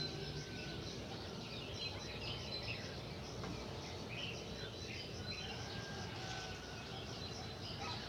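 Small birds chirping and twittering: many short, quick calls scattered throughout over a steady background hiss.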